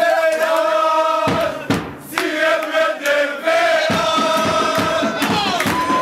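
A crowd of men chanting together in long held notes. A fast rhythmic beat comes in underneath about a second in, drops out briefly, and returns near the four-second mark.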